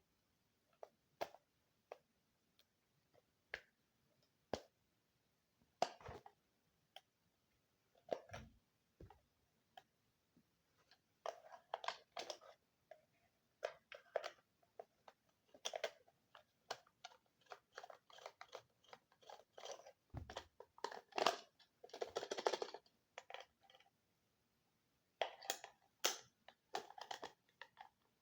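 Scattered clicks and short scraping, crunching bursts from a screwdriver working screws out of a plastic sound machine's case and the case being handled. The sounds are sparse at first and come thick and fast from about eleven seconds in.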